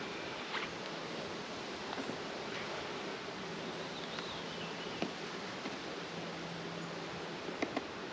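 Honeybees buzzing around an open hive, a steady drone with a faint low hum, broken by a few light clicks.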